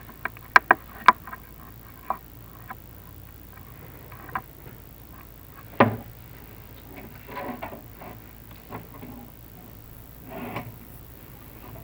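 Scattered sharp clicks and knocks with a few short scrapes: the chimney inspection camera and its cable tapping and rubbing against the clay flue tiles as it is lowered down the flue. A quick cluster of clicks comes about a second in, the loudest knock near the middle, and brief scraping follows later.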